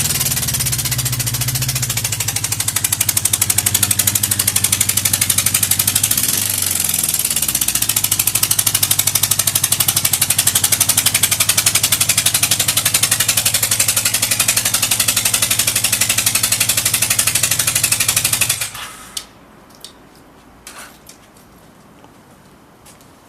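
Yamaha XS1100 air-cooled inline-four motorcycle engine running. Its speed dips and picks up again about six seconds in, and it is shut off about nineteen seconds in, followed by a few light clicks. The idle is one the seller lists as unstable.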